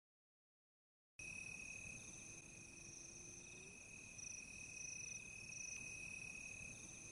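Faint crickets chirping, coming in about a second in after a moment of silence: a steady high trill with a higher, pulsing chirp above it.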